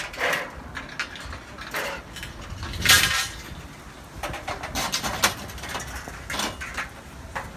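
Scattered metallic clanks and knocks of solar-panel mounting rails and hardware being handled during teardown, the loudest clank about three seconds in and a quick run of knocks around five seconds.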